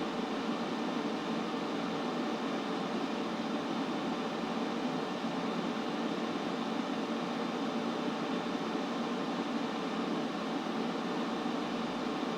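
Steady white-noise sleep track: an even, unchanging hiss, strongest in the lower middle range, with no drips, beats or other events.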